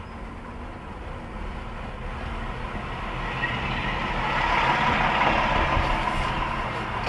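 Fire pumper's engine and road noise heard from a car behind it, growing louder from about three seconds in as the car draws alongside and passes the truck, with a steady low rumble underneath.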